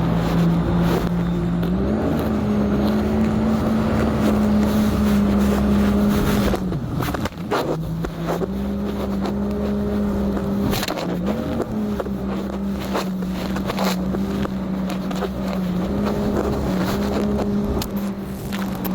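Jet ski engine running under way, its pitch stepping up and down a little as the throttle changes. It eases off briefly about seven seconds in, then picks back up.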